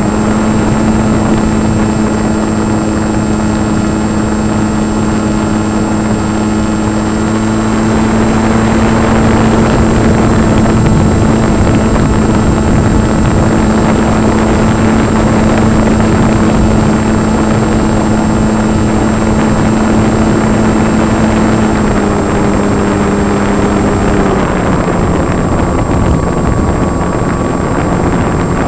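Electric RC plane's motor and propeller running steadily in flight, heard from the plane itself, with a steady tone over wind rush. Its pitch drops about four seconds before the end, as the throttle is eased back.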